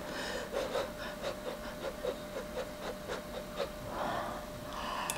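Close-miked chewing of soft ramen noodles and egg, a regular run of about three to four chews a second, followed by a breath near the end.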